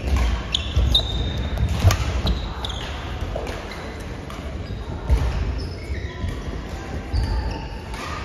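Badminton play on a hall court: sharp racket hits on a shuttlecock, short high shoe squeaks on the court floor and thudding footfalls, busiest in the first couple of seconds and sparser after.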